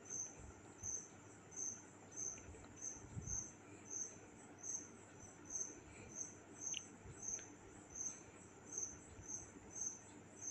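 A cricket chirping steadily, short high chirps at an even pace of about two to three a second. A few faint clicks of handling are heard too.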